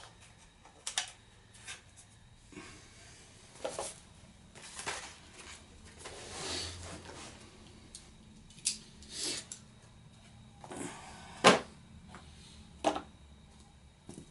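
Irregular clicks, taps and rustles of plastic quadcopter parts and cardboard packaging being handled, with a brief rustle in the middle and one louder knock near the end.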